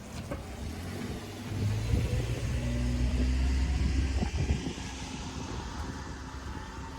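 A motor vehicle passing close by: a low engine rumble swells about a second and a half in and fades away after about four and a half seconds.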